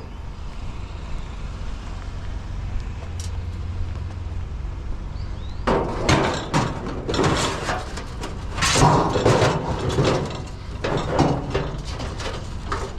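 A vehicle engine runs steadily underneath, and from about six seconds in there is a run of irregular clattering knocks and rattles as curbside scrap metal, a vent hood and curtain rods, is handled.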